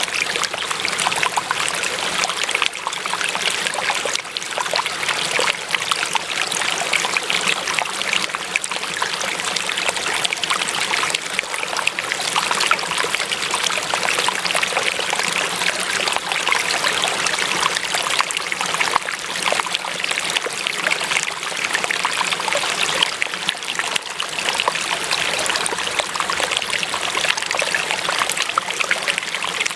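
Running water trickling and splashing steadily, like a small stream.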